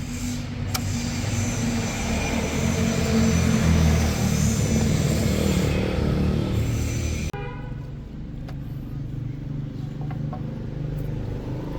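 Motor vehicle engine running, loudest around four seconds in, then cut off abruptly about seven seconds in, leaving a quieter low steady hum with a few faint clicks.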